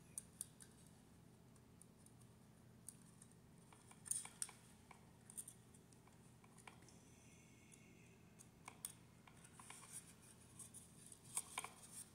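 Near silence with faint, scattered small clicks and scratches: thin copper telephone wire being bent around a screw terminal and under its washer on a plastic phone jack, fingers rubbing on the wire and the jack plate. A slightly louder cluster of clicks comes about four seconds in and again near the end.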